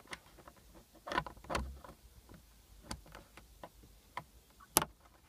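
Small plastic trim clip being handled and pushed back into place: scattered light clicks and taps, a few louder knocks about a second and a half in, and one sharp click near the end.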